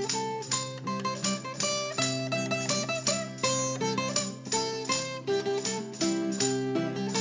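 Background music: plucked acoustic guitar picking a steady run of notes.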